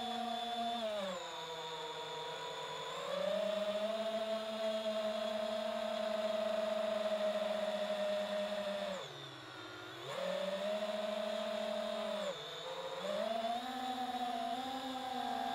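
FPV quadcopter's electric motors and propellers whining, heard from the camera on board. The pitch falls and climbs back several times with the throttle, dropping furthest about nine seconds in.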